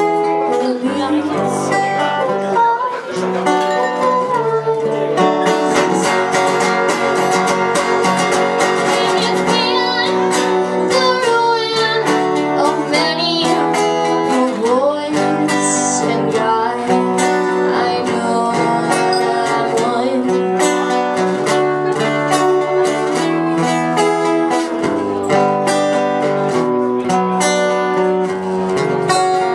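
Live acoustic duo: a steel-string acoustic guitar strummed together with a second, electro-acoustic guitar, with a woman singing in parts.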